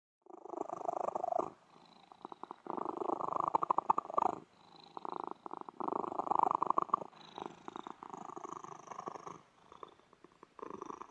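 Cat purring in long, rhythmic bouts of fast pulses, with short pauses between breaths.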